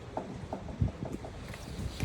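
Balls rolling down a marble-run slope, clacking and knocking against the track in a quick irregular series, with one heavier knock a little under a second in.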